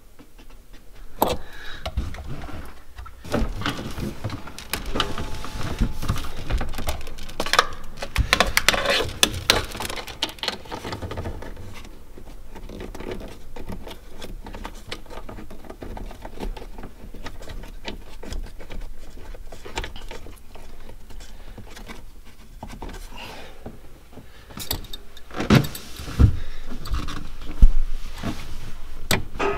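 Hands working hydraulic hoses and fittings onto a shallow-water-anchor pump in a cramped compartment: irregular rustling, small clicks and clatter, with a few louder knocks of a metal tool near the end.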